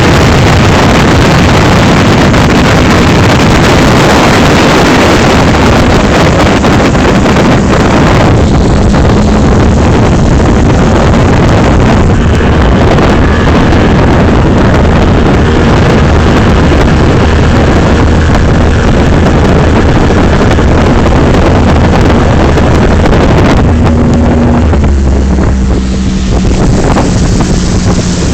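Motorboat under way at speed: the motor running steadily under a heavy rush of wind on the microphone and water noise. Near the end the engine note drops in pitch and the level eases off as the boat slows.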